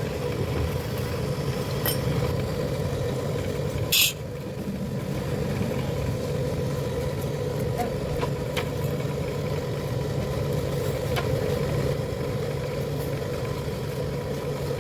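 A machine running with a steady hum, with a sharp, short high hiss about four seconds in and a few light clicks.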